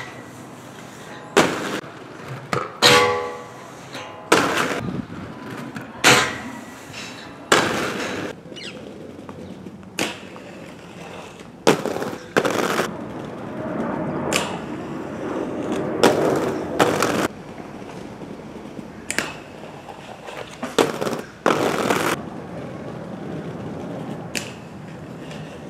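Aggressive inline skates rolling on pavement and grinding along concrete ledges and metal handrails, with more than a dozen sharp landing clacks and slaps. One grind about three seconds in rings with a metallic tone.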